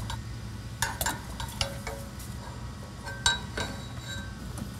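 Metal parts of the clutch Z-bar and shift linkage clinking as they are handled and fitted overhead under a car on a lift: a series of sharp metallic clinks, the loudest about three seconds in, over a steady low hum.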